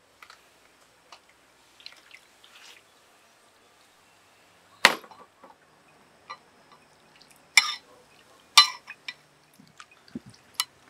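Metal tongs clinking against a ceramic bowl as soaked mushrooms are lifted from their water, with light dripping and splashing. A handful of sharp clinks, the loudest about five seconds in.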